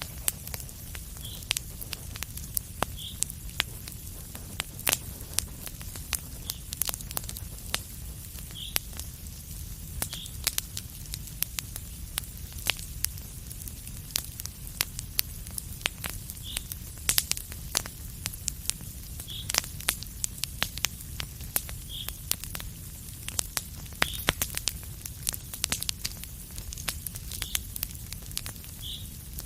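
Wood fire in a fireplace crackling: irregular sharp pops and snaps, several a second, over a steady low rumble and hiss, with faint short high squeaks every second or two.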